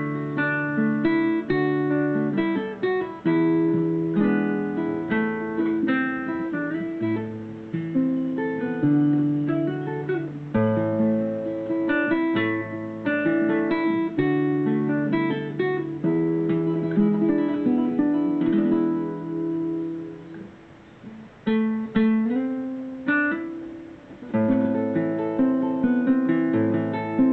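Solo nylon-string classical guitar played fingerstyle: a plucked melody over changing bass notes. It softens twice in the second half before coming back fuller near the end.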